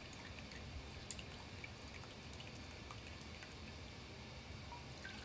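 Chicken broth poured from a carton into a measuring cup: a faint trickle of liquid with a few small drips.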